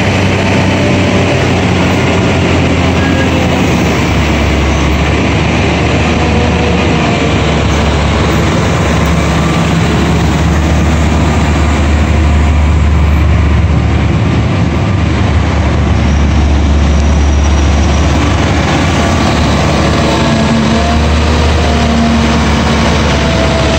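Caterpillar 966H wheel loader's C11 six-cylinder diesel engine running steadily with a loud, low drone. Fainter tones drift slightly up and down in pitch over it.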